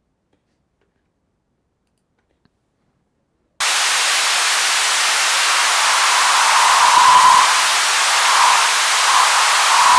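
Silence, then high-pass filtered white noise from the Haken Continuum's EaganMatrix synth cuts in abruptly about three and a half seconds in: a steady hiss with the low end stripped away. In the second half a resonant hump from the filter's resonance swells and fades several times, giving a ringing band in the middle of the hiss.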